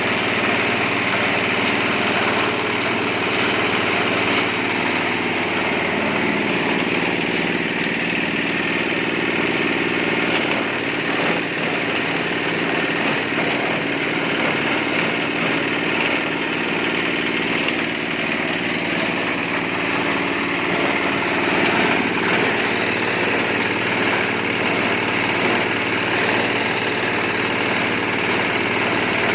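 Engine-driven compost shredder running steadily on a trial run, a continuous engine drone with a whirring, noisy top. Its pitch shifts slightly a few seconds in.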